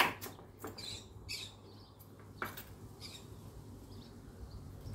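A few sharp knocks of a knife cutting a carrot on a wooden cutting board, with budgerigars and parrots chirping in the background.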